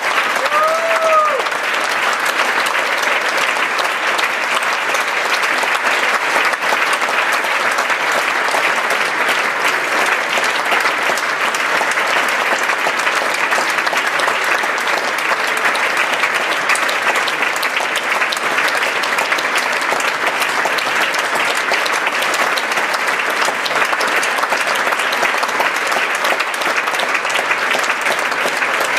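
Theatre audience applauding steadily and densely, with a short rising-and-falling call from one voice about a second in.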